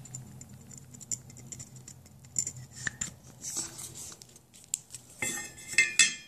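Light clicks and scrapes of a plastic midstream ovulation test being handled, with a cluster of louder clicks about five to six seconds in as it is set down on a tabletop mat.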